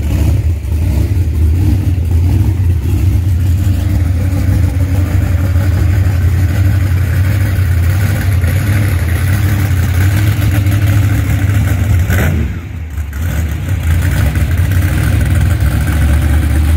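Monster truck engine running with a heavy, uneven low rumble, dipping briefly about twelve seconds in.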